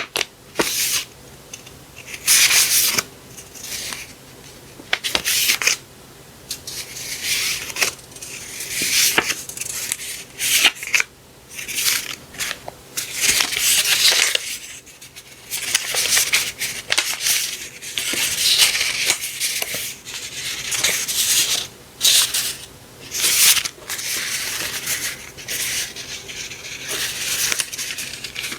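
Paper and packaging being handled, rustling and crinkling in short irregular bursts with light clicks and taps.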